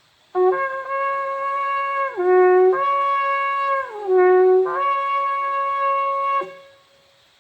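A shofar blown in one unbroken blast of about six seconds. It holds a high note, twice dips briefly to a lower note and jumps back up, then stops abruptly.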